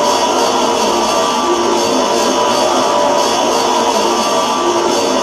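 Experimental noise music: a loud, unbroken, dense wash of noisy sound, with short held tones in the midrange coming and going.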